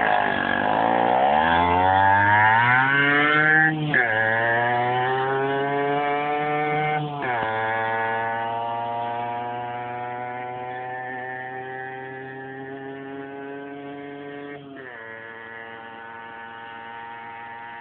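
Yamaha DT50 MX's 50cc single-cylinder two-stroke engine accelerating away, its note climbing and dropping back at three gear changes, about 4, 7 and 15 seconds in. The sound fades steadily as the bike rides off into the distance.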